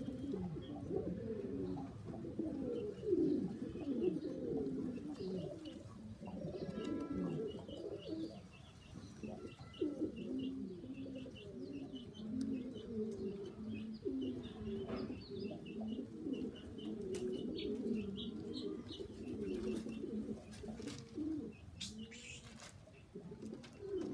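A flock of domestic pigeons cooing continuously, with many coos overlapping. Short, faint, high chirps sound in the background.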